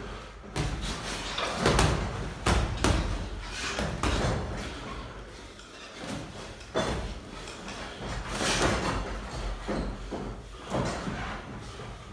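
Boxing gloves landing on gloves and headgear during sparring: irregular, sharp thuds of punches, some in quick clusters.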